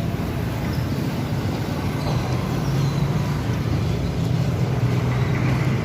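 A motor running steadily: a low rumble with a hum that grows stronger about two seconds in.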